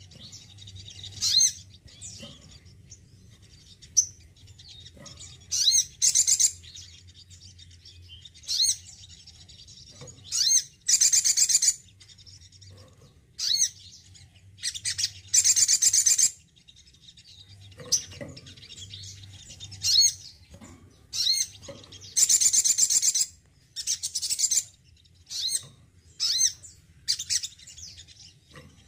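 Caged male sunbird singing: repeated bursts of high, fast chirping and trilling phrases, some short and some about two seconds long, with single chirps between them, over a faint steady low hum.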